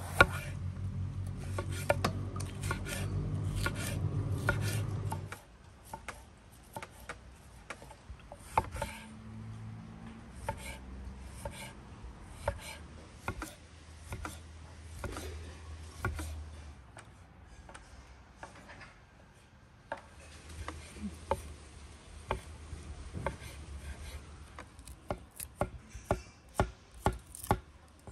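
Chef's knife slicing green peppers and cherry tomatoes on a wooden cutting board, each cut ending in a knock of the blade on the board. The cuts come quickly at first over a low hum, thin out in the middle, and near the end settle into a steady run of about two knocks a second.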